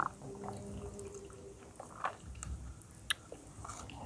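Iced coffee being poured from a glass into a plastic cup of ice: a faint trickle of liquid, with a few light clicks about two and three seconds in.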